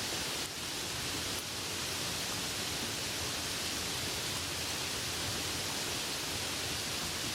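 Soft rain falling steadily, an even hiss without distinct drops.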